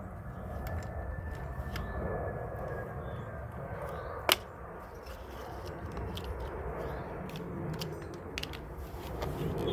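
Handling noise from hand work on a chainsaw being taken apart: faint scattered ticks and one sharp click about four seconds in, over a steady low rumble.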